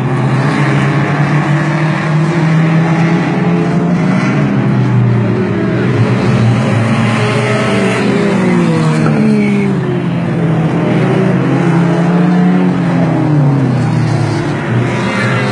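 Dirt-track race cars running laps, their engines droning steadily at speed. Several cars pass close about halfway through, their engine pitch sliding down as they go by.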